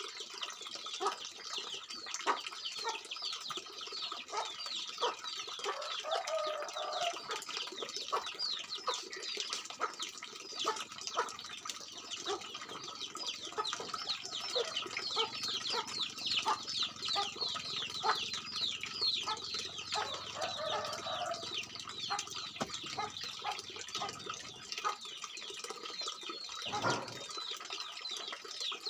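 Many small songbirds chirping and twittering in a dense, rapid chorus of short high downward notes, over a steady background hiss.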